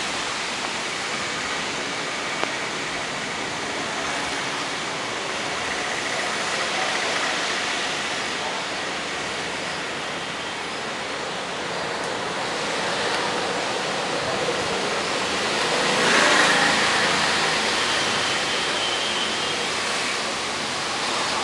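Steady rain falling, an even hiss that swells louder about sixteen seconds in.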